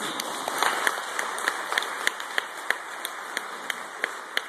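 Audience applauding, with one pair of hands close by clapping sharply about three times a second; the applause eases off toward the end.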